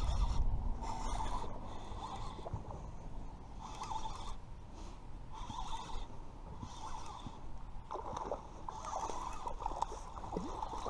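Baitcasting reel being cranked in repeated short spells as line is wound in under load from a hooked bass. From about eight seconds in, the fish splashes and thrashes at the water's surface.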